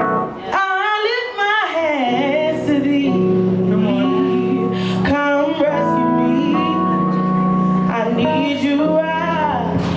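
Live gospel-style song: a singer's voice swoops up and down in long melismatic runs with few clear words, over steady held keyboard chords.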